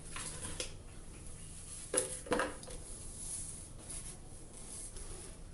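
A small product box being opened and its contents handled: light rustling with a few short knocks, the loudest two close together about two seconds in.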